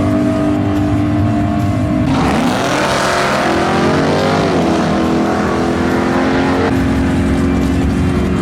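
Drag race car engines running at the strip. After a steady stretch, a car revs hard and goes off down the track about two seconds in, its engine pitch sweeping down and back up.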